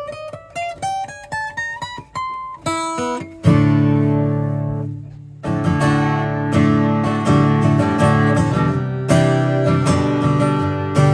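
Martin D-R rosewood dreadnought acoustic guitar, freshly set up and restrung, being test-played: single notes picked in a run climbing up the neck, then a full chord strummed about three and a half seconds in and left to ring, followed by steady strummed chords.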